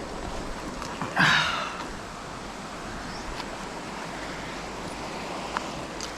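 Steady rushing outdoor noise with one short, loud pitched call about a second in.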